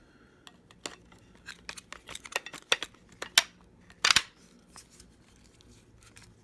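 Irregular sharp clicks and clacks from handling a Kryptonite U-lock and its key, with a louder clatter about four seconds in.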